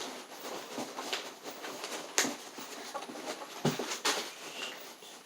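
Packing material in a shipping box being handled and pulled about: irregular rustling and crinkling with scattered sharp clicks and knocks, two of them louder, about two and four seconds in.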